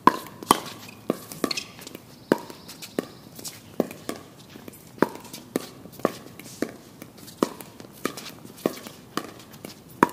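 Pickleball rally: a plastic pickleball popping off paddles and the hard court, a sharp hollow pop roughly every half second.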